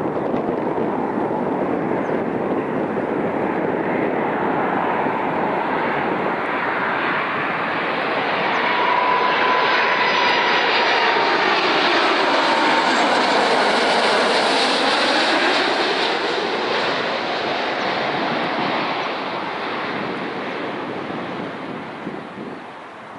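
Lufthansa Airbus A330-300 twin-engine jet airliner on landing approach, gear down, passing low overhead. Its Rolls-Royce Trent 700 engines grow louder to a peak midway with a steady whine and a sweeping, phasing rush, then fade as it moves away toward the runway.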